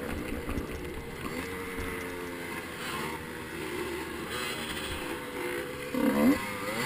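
Husqvarna off-road motorcycle engine running at moderate, slowly varying revs, with a quick rise and fall in pitch from a throttle blip about six seconds in.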